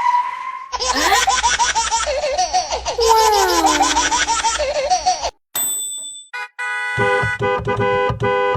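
Edited meme soundtrack: a held horn-like tone cuts off within the first second. Then comes laughter over a steady beat for about four seconds, a brief high electronic tone, and a short burst of stuttering synth music near the end.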